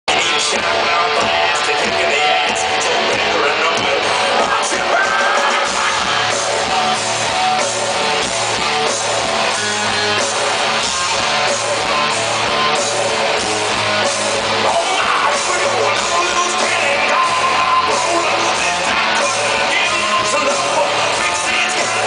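Rock band playing live, loud and steady: electric guitars, drums and a lead singer, heard from among the audience.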